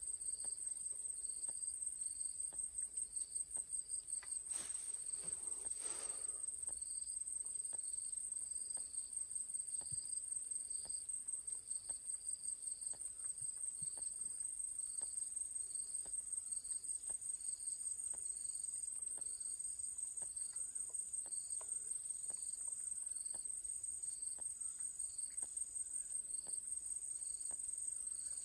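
Insects calling steadily: a continuous high, fast-pulsing trill, with a second insect chirping about once a second and a third, higher chirp joining about halfway through. Faint clicks and two short rustles come early on top.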